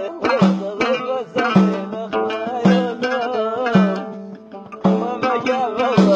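A watra, a plucked folk lute, playing an instrumental passage in a Middle Eastern folk style. A wavering melody runs over a low note that repeats about once a second.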